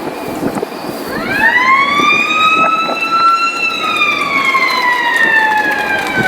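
Ballpark motor siren marking the end of a high school baseball game: it winds up in pitch about a second in, holds, then slowly sinks. Gusty wind noise sits underneath.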